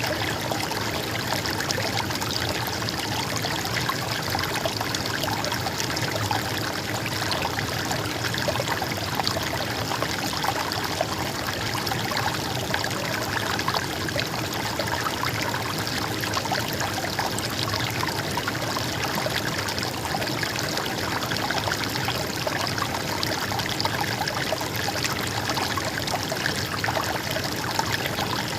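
A shallow stream babbling and trickling steadily over stones, with no change in its flow.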